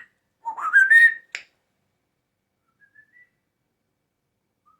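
Grey parrot giving a loud whistle that rises in pitch, followed by a sharp snap. A few faint short whistle notes, each rising, come about three seconds in.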